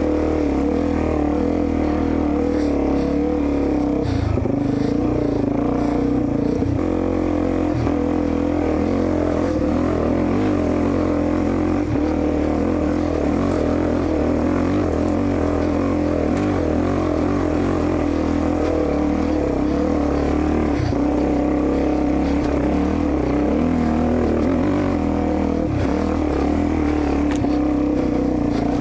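Dirt bike engine running at steady, fairly low revs as the bike is ridden slowly up a trail, its pitch wavering only a little.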